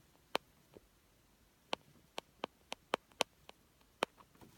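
About ten short, sharp clicks at uneven intervals, bunched closest together in the middle, from handling and screwing the plastic back cover of a car's interior light fixture into place.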